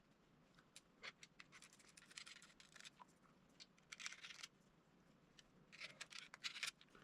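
Faint scattered clicks and light scratching of small metal reel parts being handled, as a bearing is worked onto a spinning reel's handle shaft.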